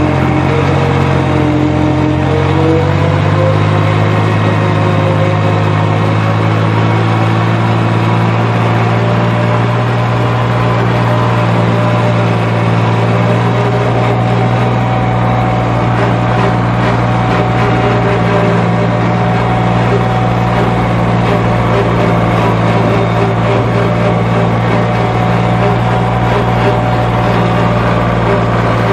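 Lawn mower engine running steadily under mowing load; its note rises a little about two seconds in, then holds even.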